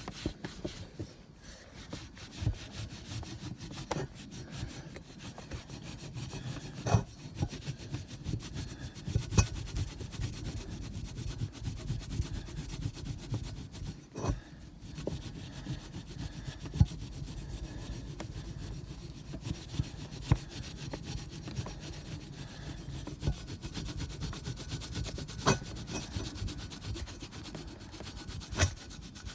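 Cloth rag scrubbed back and forth along a painted steel bicycle frame tube, rubbing off sticker glue with petrol: a steady rubbing with occasional sharp knocks.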